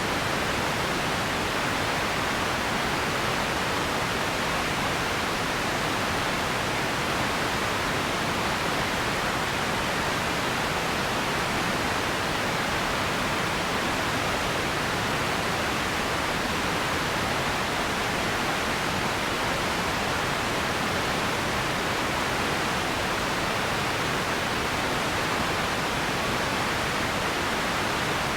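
Radio static: a steady, even hiss of noise with no tones, voices or breaks, strongest in the middle and upper pitches.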